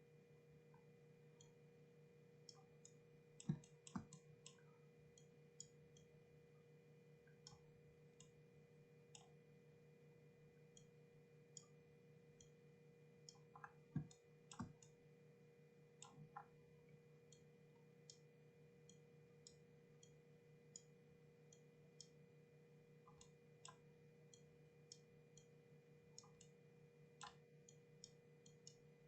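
Faint, scattered clicks of a computer mouse and keyboard over a steady low hum, with a few louder clicks about three and a half, four and fourteen seconds in.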